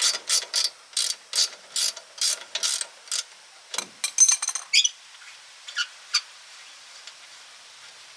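Socket ratchet wrench clicking in quick back-and-forth strokes, about two to three a second, working a shock absorber mounting bolt loose. The ratcheting stops about three seconds in, followed by a few metallic clinks and then a couple of faint clicks.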